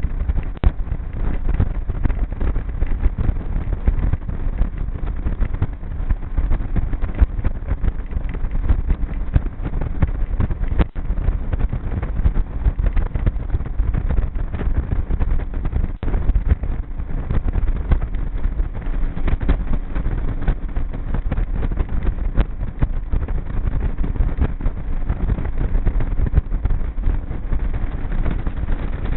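Motorboat under way on a river: its motor runs steadily under a constant rumble of wind and water noise.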